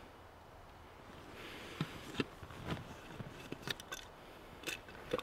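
Quiet handling sounds of a soldier stirring: clothing rustling, then a run of small clicks, taps and scrapes as his steel helmet and kit are handled, starting about two seconds in.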